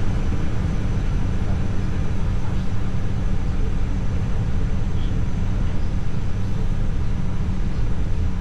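Steady low rumble of flight-deck noise in an Airbus A320 on the ground, its CFM56-5B4 engines at idle, with a faint steady high tone above it.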